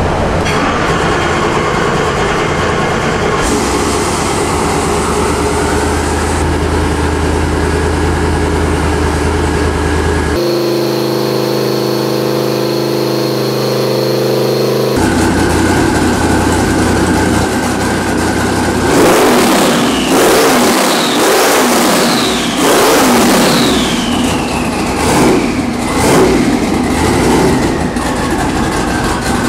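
Twin-turbocharged 428 Ford Windsor V8 running on an engine dyno, first held at steady speed and then blipped sharply about half a dozen times in the second half. A falling turbo whine follows each blip as the mirror-image turbochargers spool down.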